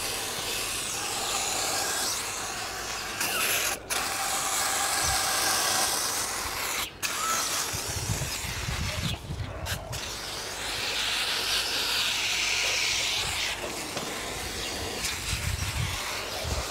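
Aerosol brake cleaner spraying into a steam engine casting in long hissing bursts, with brief breaks about four, seven and ten seconds in.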